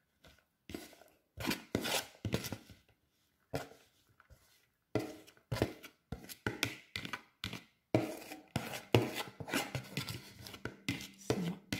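Chopped sweet corn being scraped out of a plastic bowl into a stone mortar: irregular scrapes and taps, sparse at first, then coming thick and fast from about halfway through.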